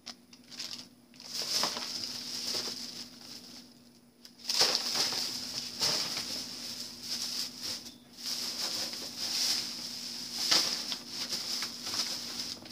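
Plastic shopping bags rustling and crinkling as they are handled and rummaged through, in irregular fits and starts that get much louder about four and a half seconds in.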